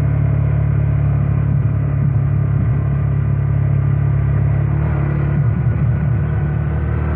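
Motorcycle engine running steadily at low speed, with a heavy low rumble and a slight wavering in pitch about five seconds in.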